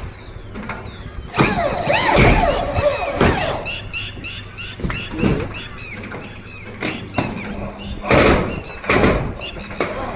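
Metal roofing sheet being worked: a loud scraping squeal lasting about two seconds, then scattered knocks and two more short, loud scraping bursts near the end.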